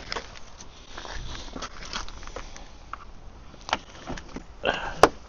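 Scattered light clicks and knocks from tools and car parts being handled, ending in one sharp click near the end.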